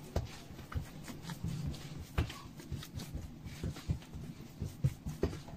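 Hands patting, pressing and slapping soft, slack, sticky yeast dough on a granite countertop while gathering it with flour: a string of faint, irregular soft taps and thumps.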